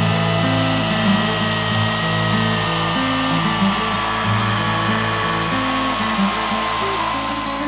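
Oregon CS1500 corded electric chainsaw running at full speed and cutting through a log, a steady motor-and-chain whine that sags slightly in pitch as it works through the wood. Background music plays underneath.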